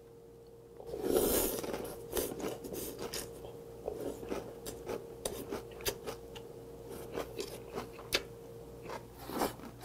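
A person eating cold doenjang mulhoe: a loud slurp of shredded raw vegetables and broth about a second in, then crunchy chewing with many wet mouth clicks, and another slurp near the end.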